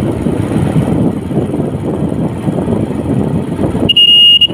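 Steady low rumble of wind and road noise from a moving vehicle. Near the end this cuts away to a loud, high, steady beep lasting about half a second.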